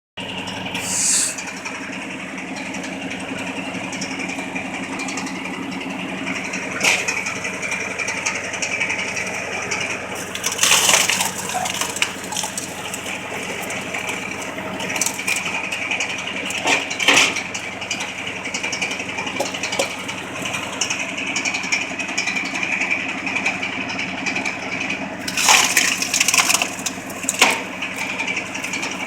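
Tractor engine running steadily while driving a homemade PTO-powered firewood splitter, a constant mechanical hum. Several sharp knocks stand out over it, a few of them in a cluster near the end.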